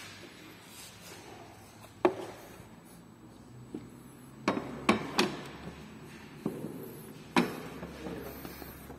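Hard plastic engine-bay covers knocking and clicking as they are handled and fitted: about seven sharp separate knocks, most of them between four and a half and seven and a half seconds in.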